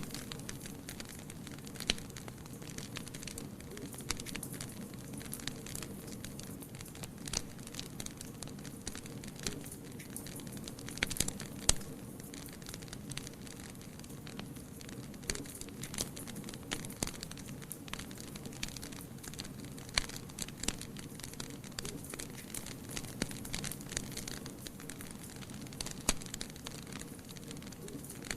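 Wood fire burning in a fireplace: a steady low rumble of flames with irregular sharp crackles and pops, a cluster of louder pops about eleven seconds in.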